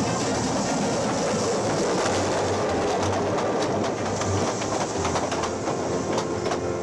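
Steam train running along the track: a steady rush of noise with quick clicks of the wheels on the rails.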